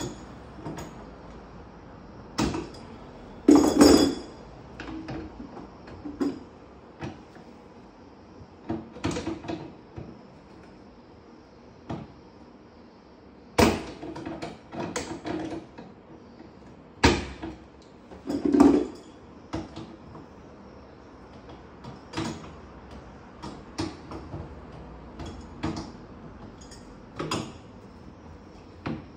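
Irregular metallic clanks and knocks of hand tools working at a fridge compressor's fittings as it is being removed, some with a short ring.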